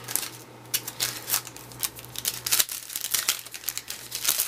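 Crinkling and tearing of a baseball card pack's wrapper, with quick irregular crackles as the pack is torn open and the cards are handled.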